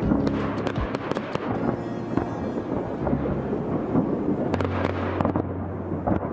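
Fireworks going off: a rapid string of sharp bangs and crackles, bunched in two flurries, about a second in and again near the end, over a steady rumble.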